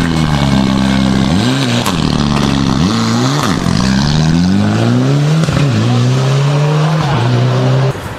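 Mitsubishi Lancer Evolution rally car's turbocharged four-cylinder engine revving hard through a hairpin, its pitch dropping and climbing again several times as the throttle is worked. Over the last few seconds it pulls away with the pitch rising steadily, then cuts off abruptly near the end.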